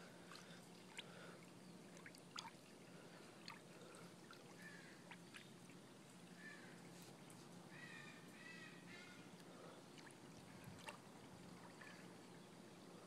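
Near silence: faint drips and small splashes of water around a wet dog standing in shallow water, with a few faint ticks.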